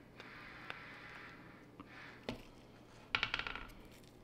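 Potting mix being added to a plant pot by hand: soft rustling of the mix, a knock about two seconds in, then a quick rattle of sharp clicks about three seconds in.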